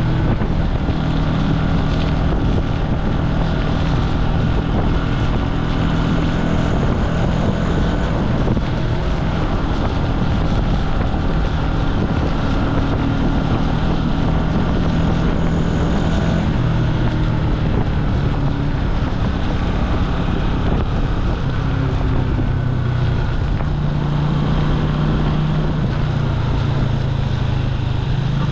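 A Jialing 150 cc motorcycle engine running under way, its pitch shifting several times as the throttle and gears change. Wind buffets the microphone throughout.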